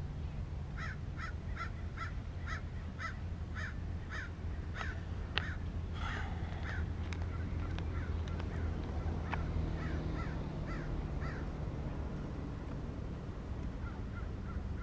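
A bird calling in a rapid, even series of short harsh calls, about two a second, then more scattered calls, over a steady low rumble.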